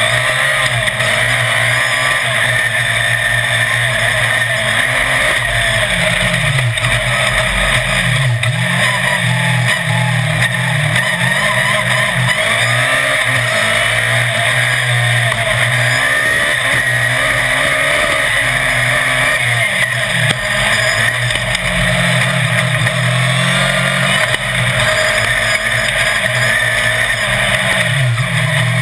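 Autocross race car engine running hard under racing load, its pitch rising and falling again and again as it revs through the corners, heard loud from on board over wind and dirt-track noise.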